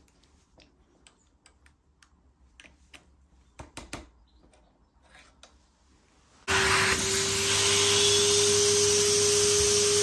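Faint clicks and taps of a fork cutting guide being handled and clamped, then, about six and a half seconds in, a vacuum cleaner switches on and runs loud and steady with a constant motor whine.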